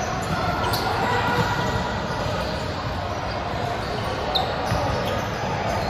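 Busy indoor gym during volleyball play: a reverberant, steady din of balls being hit and bounced, shoes moving on the hardwood, and a couple of short high shoe squeaks about a second in and after four seconds.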